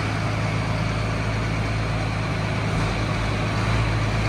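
Diesel engines of a John Deere 4955 and a Case IH 1455 tractor idling together with a steady low hum, before a tug-of-war pull.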